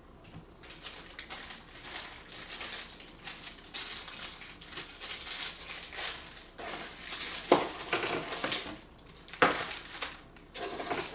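Clear plastic packaging bag crinkling and rustling as it is handled and an accessory is unwrapped by hand, with two sharp clicks in the second half.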